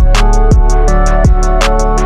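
Background music: sustained chords over a steady beat with a deep kick drum and bright hi-hat ticks.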